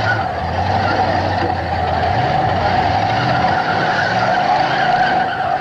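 Demolition derby cars' engines running hard as their wheels spin in the dirt. It is a steady, loud din with no single crash standing out.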